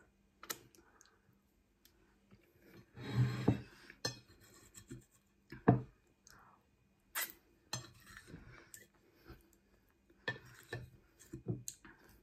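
Wooden fork scraping and clicking against a ceramic plate in scattered short strokes, with eating sounds between.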